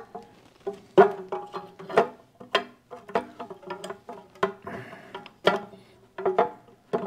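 Metal clinks and taps of a puller being fitted onto a Mag-Lite flashlight's stuck end cap: irregular sharp knocks, each with a brief ring, about two to three a second.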